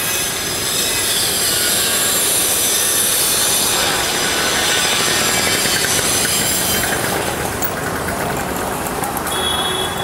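Street traffic noise heard from a moving two-wheeler, with a steady high-pitched hiss that eases off about seven seconds in.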